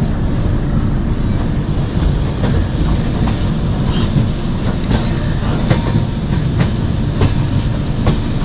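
Indian Railways express train running at speed, heard from an open coach doorway: a loud, steady rumble of wheels on the rails with repeated short clacks.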